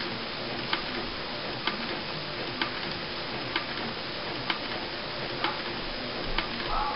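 Epson Stylus Photo R200 inkjet printer printing a colour test page: a steady swishing of the print head at work, with a light click about once a second.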